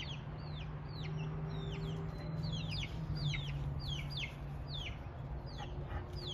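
Baby chicks peeping over and over, short high cheeps that fall in pitch, about three a second, over a steady low hum.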